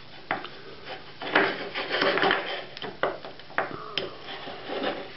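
A skewered rabbit roll being turned and rolled in a ceramic dish of powdered mushroom breading: several sharp taps against the dish and a stretch of gritty scraping and rustling about a second in.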